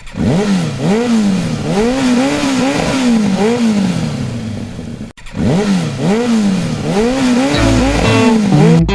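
Motorcycle engine revved in quick repeated throttle blips, its pitch rising and falling about twice a second, with a short break about five seconds in before the revving resumes. Guitar music comes in near the end.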